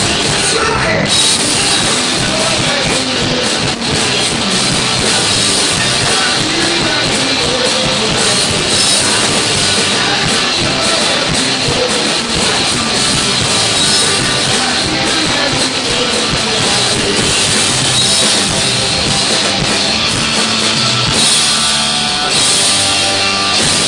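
A rock band playing live and loud: electric guitar and drum kit.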